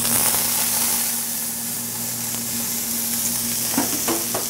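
Blanched sugar snap peas tipped into a hot sauté pan, starting to sizzle the instant they land, then sizzling steadily.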